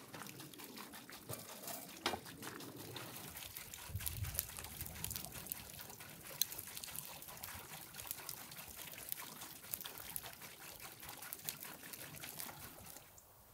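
Wood fire crackling and popping inside a barrel grill: dense, irregular sharp snaps, with a low thud about four seconds in. The crackling stops shortly before the end.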